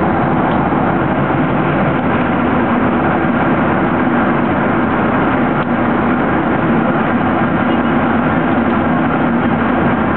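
Steady drone of engines and rushing air inside an aircraft cabin in flight, with a constant low hum underneath.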